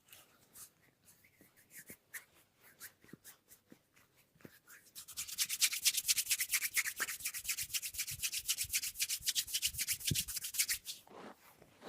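Hands rubbing through hair during a head massage: a few scattered light rubs and taps, then from about five seconds in a long run of fast, dense rubbing strokes that stops shortly before the end.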